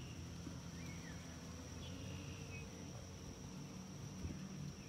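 A steady high-pitched insect trill, like a cricket chorus, over a low outdoor rumble, with a couple of faint short chirps, one at the start and one about two seconds in.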